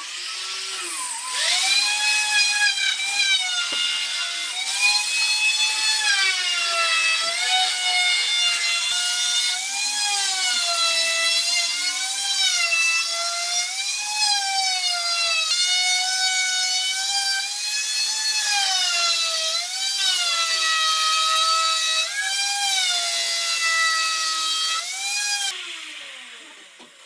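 Electric hand planer running on a wooden beam: a high motor whine that dips and recovers in pitch every second or two as the blade bites into the wood. Near the end it winds down with a falling pitch.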